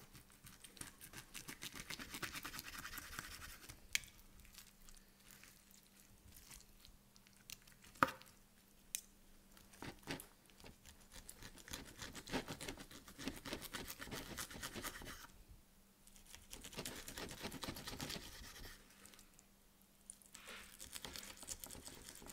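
Steak knife sawing back and forth through a fatty rib steak, the blade scraping on a wooden board in runs of quick strokes, with a sharp clack about eight seconds in.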